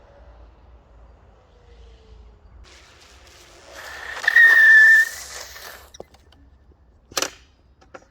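Nami Viper electric scooter on a test ride after a controller repair: a faint rising whine fades early, then a burst of rushing noise with a high, whistle-like tone about four seconds in, the loudest part. A click and a sharp knock follow near the end.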